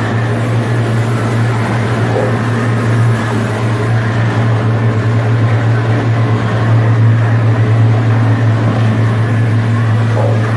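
Steady drone of an engine or motor-driven machine running continuously, with a strong low hum.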